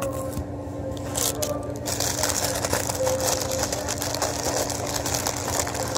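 Paper burger wrapper crinkling as it is unwrapped by hand, a short rustle about a second in, then dense continuous crackling from about two seconds in. A steady low hum runs underneath.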